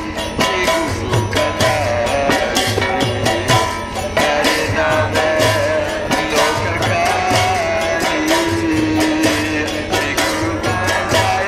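Hindu devotional bhajan (kirtan): a man sings the melody into a microphone over a mridanga drum and brass kartal hand cymbals keeping a steady beat.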